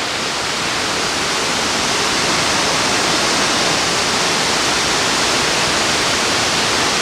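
Waterfall rushing: a loud, steady roar of water pouring over the falls, building slightly in the first couple of seconds.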